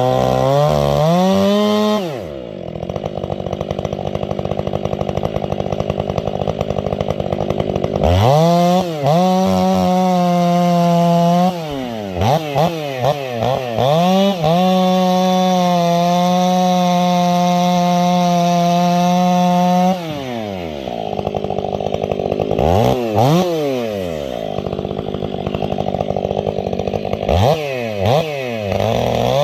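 Big two-stroke chainsaw with an 8-pin rim sprocket working at full throttle, holding high steady revs for several seconds at a time. Twice it drops back to a low running speed, then revs up again with short blips of the throttle.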